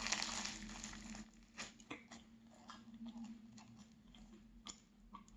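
Light, flaky chocolate pastry being broken open: a crackling rustle of flaking layers in about the first second, then scattered small crackles.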